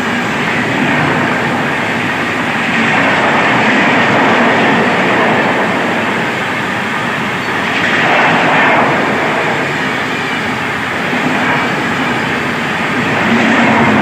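Train hauled by an Indian Railways WAP-7 electric locomotive running past: a loud, steady rushing of wheels on rails that swells and eases a little.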